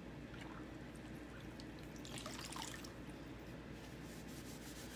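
Faint scrubbing of a damp board eraser rubbing chalk paste off a chalkboard.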